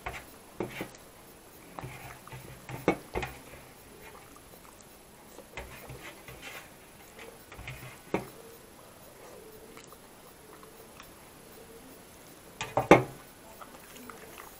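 Eating with the hands from a stainless-steel thali: fingers scraping up the last of the food from a steel compartment, with chewing and mouth smacks as scattered short clicks, the loudest cluster near the end.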